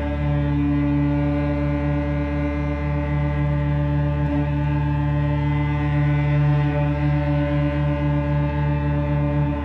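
Sustained drone from a live new-music ensemble piece: a dense chord of steady low tones held throughout, the lowest notes wavering slightly.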